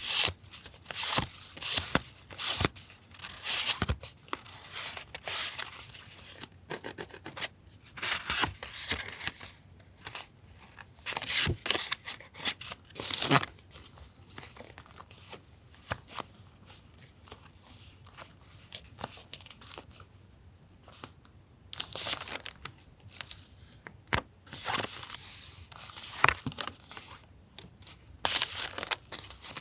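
Sheets of paper and stickers being handled, with rustling, crinkling and tearing sounds in irregular bursts and a sharp click here and there. A quieter stretch falls around the middle.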